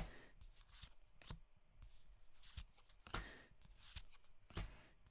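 Pokémon trading cards being handled and flipped through by hand: quiet, soft swishes and light clicks of card stock sliding over card, several of them a second or more apart.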